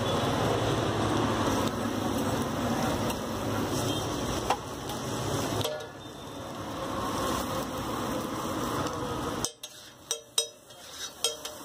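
Egg mixture sizzling on a flat street-stall griddle against steady street-traffic noise. Near the end a metal spatula clicks and scrapes against the griddle several times in quick succession as the mixture is chopped and stirred.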